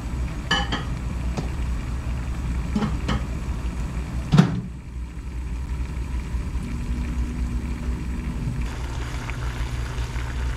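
Kitchen clatter: a few light clicks and one sharp knock about four seconds in, over a steady low hum.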